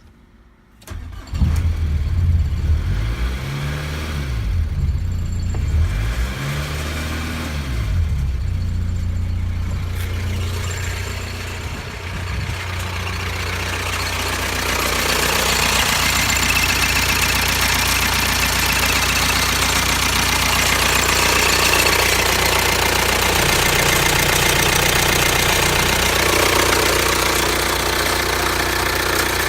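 VW Golf 3 1.9 turbodiesel four-cylinder engine (code 1Z) starting about a second in, then running. Its pitch rises and falls twice in the first several seconds, then it settles into steady running that gets louder about halfway through.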